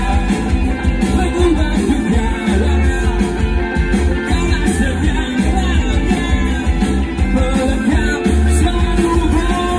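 Live rock band performing: a singer's voice over electric guitar, bass and drums, loud and continuous.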